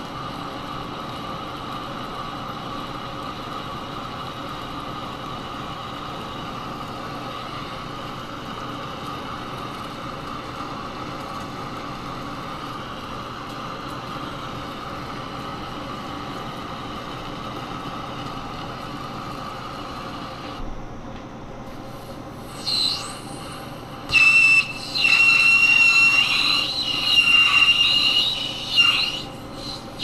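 Monarch lathe running steadily with its gear hum as an insert tool cuts a GM wheel hub. From a little past two-thirds of the way in, the cut breaks into a loud, high-pitched squeal that starts and stops several times as stringy chips come off.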